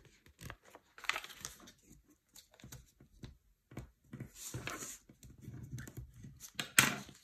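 A sheet of printed paper being folded and creased by hand: intermittent soft rustles and scrapes of the paper, with a sharp tap near the end.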